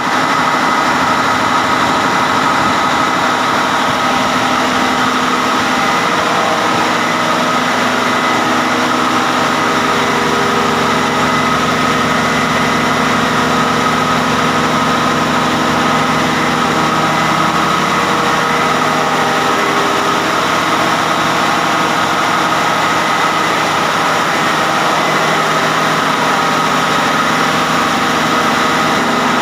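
Caterpillar 3406 inline-six diesel engine, freshly overhauled, running steadily at idle.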